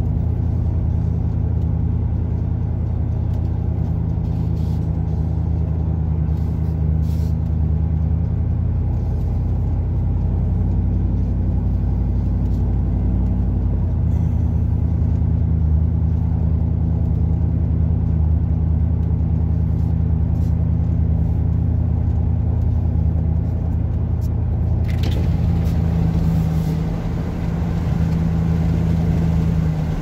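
Truck exhaust through an 8-inch Cherry Bomb glasspack muffler, heard from inside the cab while driving. The engine drones steadily, its pitch stepping up and down a few times as the truck changes speed.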